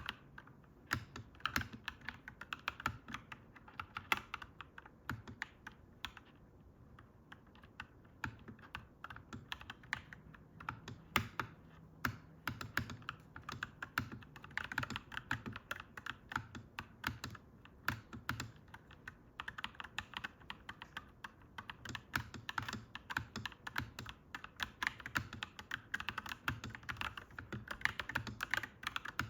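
Clacky mechanical keyboard being typed on steadily, fast runs of key clacks with a brief slower lull about six seconds in.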